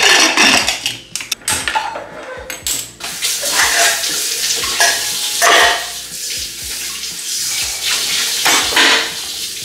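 Metal clinks and knocks as an aluminium pressure cooker's lid is fitted and locked. Then, from about three seconds in, a tap runs steadily into a steel sink while a metal pan is washed under it, clanking now and then against the sink.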